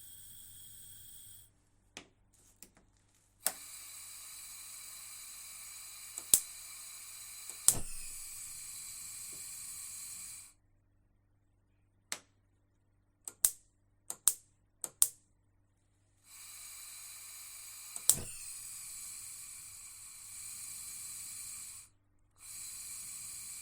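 Gas cooker: burners hissing steadily in several long stretches that start and cut off, with a dozen sharp clicks of the knobs and igniter in between, two of them loud with a low thump.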